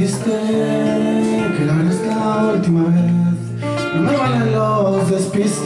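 A man singing long held notes, accompanying himself on a classical-style acoustic guitar.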